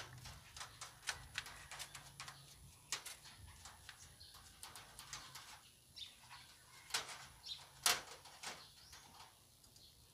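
Faint, irregular scratching and clicking on the wooden slats and wire mesh of a rabbit hutch, a rabbit moving about and the cage being handled; the loudest scrapes come about seven and eight seconds in.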